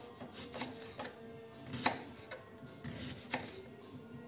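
Kitchen knife slicing an onion into rings on a wooden cutting board: about half a dozen separate cuts, each ending in a sharp tap of the blade on the board, the loudest a little under two seconds in. Soft background music plays underneath.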